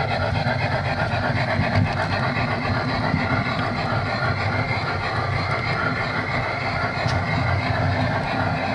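Gauge 1 model train rolling over its garden track, heard from a wagon within the train: a steady rumble of wheels on the rails.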